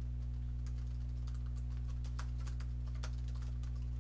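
Typing on a computer keyboard: an uneven run of quick key clicks as a sentence is typed, over a steady low electrical hum.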